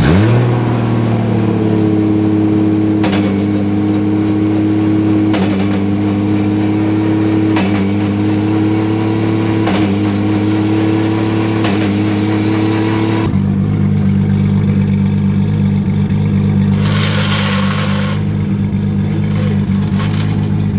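Drift car's engine revs up and is held at a steady raised speed while the car stands on jack stands with its driven rear wheel off the ground. A faint knock comes about every two seconds. About 13 seconds in it settles back to a lower idle, and a short hiss follows a few seconds later.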